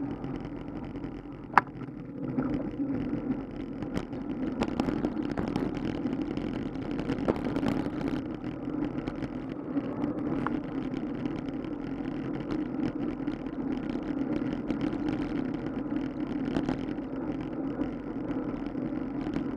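Steady rumble of wind on the microphone and tyre noise from a bicycle rolling along asphalt, recorded by a camera mounted on the bike, with scattered small rattles and clicks and one sharp click about a second and a half in.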